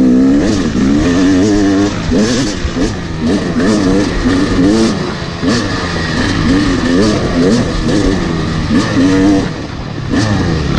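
Yamaha YZ250 two-stroke dirt bike engine, heard close up from the bike being ridden, revving up and down over and over as the throttle is worked on rough ground, its pitch rising and falling about once a second.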